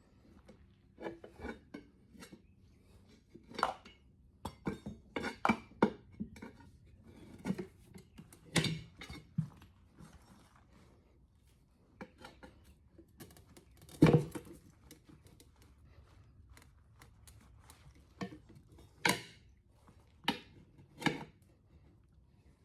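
Metal tire-mounting tools working a motorcycle tire onto its wheel rim: irregular clanks, clinks and knocks of steel against steel and rim, with one sharp knock about halfway through the loudest.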